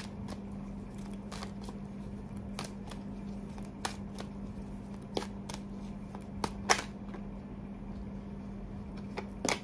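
A deck of tarot cards being shuffled by hand, with a few sharp card clicks and snaps at irregular intervals. A steady low hum runs underneath.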